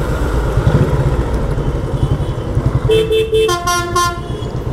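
Motorcycle engine running steadily while riding in heavy road traffic, with vehicle horns honking about three seconds in: one lower horn blast, then a higher horn with several tones in a few short blasts.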